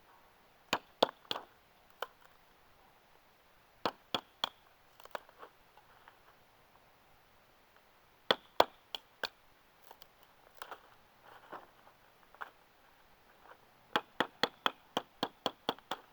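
Pocket knife being batoned through small pieces of wood with a wooden baton, splitting it for fire prep: sharp wooden knocks in short clusters, ending in a quick run of about a dozen strikes.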